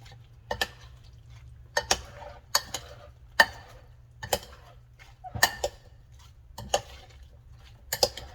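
Serving utensils clinking and knocking against a bowl while chopped fruit salad is tossed with its dressing, in separate irregular clicks about once a second.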